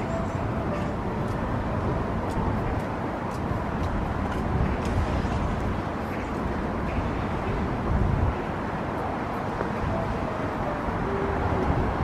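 Outdoor ambience: a steady low rumble with a few faint short tones and light ticks scattered through it.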